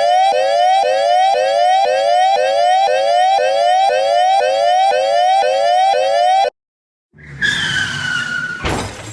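Electronic siren sound effect in a fast yelp, about three rising whoops a second, which cuts off suddenly about six and a half seconds in. A rough, noisy sound with a slightly falling tone follows, ending in a loud bang near the end.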